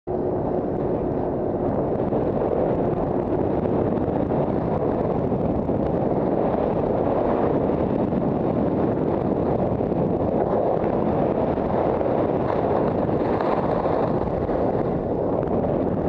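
Wind buffeting a helmet-mounted camera's microphone while skiing downhill: a steady, loud, low rushing noise.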